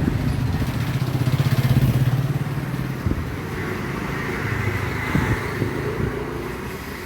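A motorcycle engine running with a fast, even pulse. It is loudest in the first couple of seconds and then fades away.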